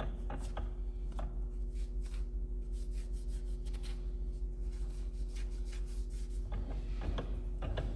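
Repeated short rubbing and scraping strokes from cleaning an A833 transmission bearing retainer by hand, with a few sharper clicks near the end, over a steady low hum.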